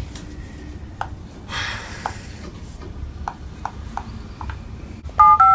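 Mobile phone being dialed: several short tapping clicks about half a second apart, then touch-tone dialing beeps, two quick ones near the end.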